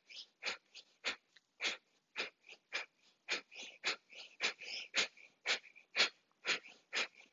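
Kapalabhati breathing: short, forceful exhalations through the nose, about two a second in a steady rhythm, each one pushed out by a snap of the belly.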